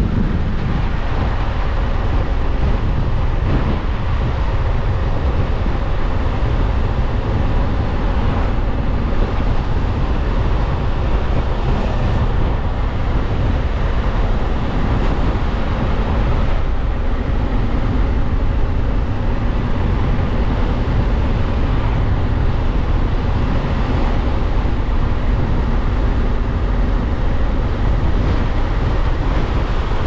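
Honda CRF1100L Africa Twin's parallel-twin engine running while under way, under heavy wind rush on the microphone, at a steady level.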